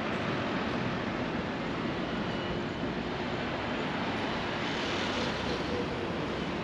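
City street traffic: a steady hum of cars passing through a wide intersection, with one car going by a little louder about five seconds in.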